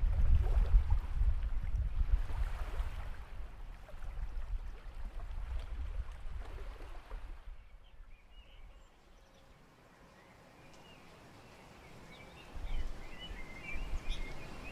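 Beach field recording: wind buffeting the microphone over the wash of the sea, fading out about two-thirds of the way through, with faint chirps and a little wind returning near the end.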